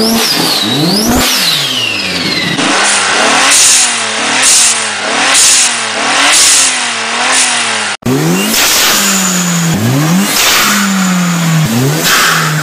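Turbocharged car engine revved in repeated blips. A turbo whistle rises and falls in the first couple of seconds, then each rev ends in a hiss from the aftermarket blow-off valve venting, about once a second. After a cut about eight seconds in, more revving with sharp swings in engine pitch.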